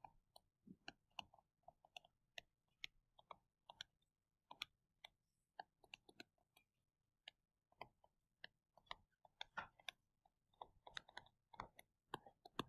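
Faint, irregular clicks and taps of a stylus on a tablet screen while writing by hand, coming in quick clusters at times.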